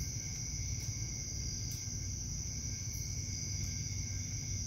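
Steady high-pitched trilling of crickets over a low hum, with a few faint clicks.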